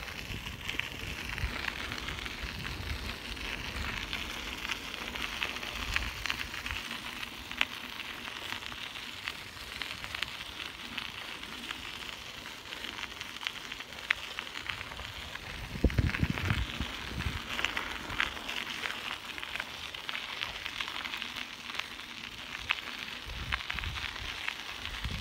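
Bicycle tyres rolling over a gravel path: a steady fine crunching crackle, with a brief louder low rumble about two-thirds of the way through.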